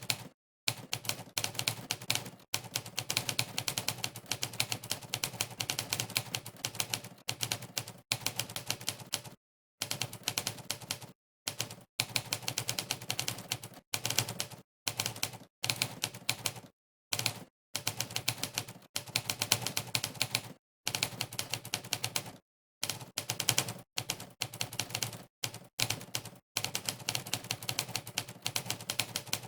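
Monkeytype's typewriter sound effect, one sharp typewriter-key clack per keystroke, coming in fast runs of typing. The runs are broken every few seconds by brief gaps of dead silence where typing stops.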